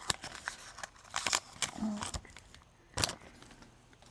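Foil booster pack wrapper crinkling and trading cards being slid out and handled, in a few short rustles and clicks, the loudest about three seconds in.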